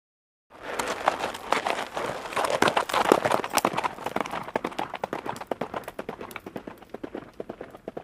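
A horse galloping: a rapid, continuous run of hoofbeats that starts about half a second in and grows fainter in the second half.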